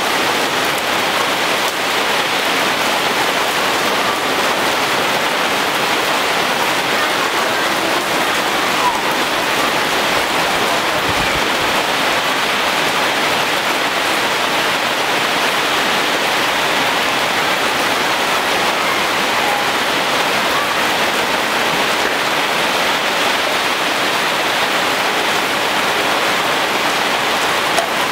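Heavy rain falling steadily on leaves and the ground, an even, unbroken hiss.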